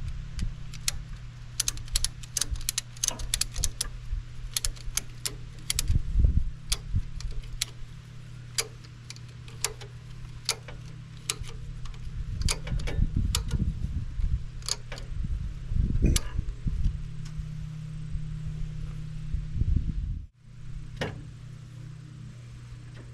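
Ratchet strap's ratchet clicking as its handle is cranked to tighten the strap, the clicks coming in quick runs with pauses between strokes, along with a few dull thumps.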